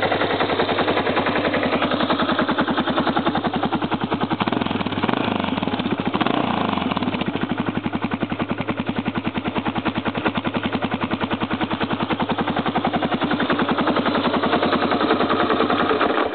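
1985 Yamaha XT600's air-cooled single-cylinder four-stroke engine idling with a steady, even thump. It is switched off with the kill switch at the very end and stops abruptly.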